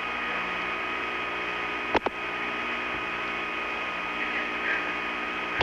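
Steady hiss and hum with a few thin steady tones, broken by a sharp double click about two seconds in.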